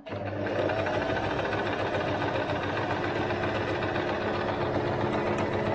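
Singer Start 1306 electric sewing machine running under foot-pedal control, stitching cloth: its motor speeds up just after it starts, then runs steady.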